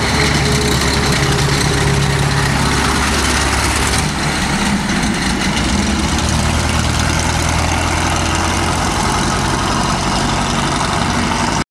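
Ford GAA V8 tank engine of an M7B1 Priest self-propelled howitzer running under way as the vehicle drives past. Its note changes about four seconds in, and the sound cuts off suddenly at the very end.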